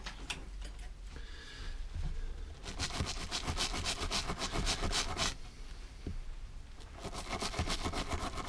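Small wire brush scrubbing a metal carburetor part held in a cloth: rapid back-and-forth scratching strokes in two spells, one starting a few seconds in and another near the end.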